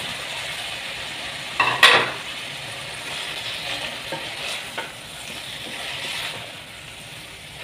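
Minced meat sizzling in a metal pot as raw potato wedges are tipped in and stirred with a wooden spatula, which scrapes against the pan. A louder burst about two seconds in, then a few light knocks of the spatula.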